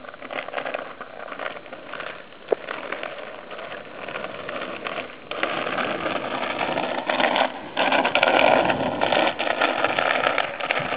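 A child's bike with training wheels rolling over rough asphalt, giving a steady grinding rattle that grows louder about halfway through as it comes near. A single sharp click comes about two and a half seconds in.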